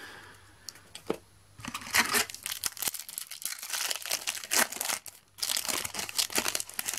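A Match Attax trading-card packet wrapper being torn open and crinkled by hand: dense crackling, in two spells with a short break about five seconds in.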